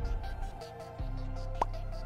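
Background music with sustained low bass notes; the sound dips briefly and a new bass note comes in about a second in.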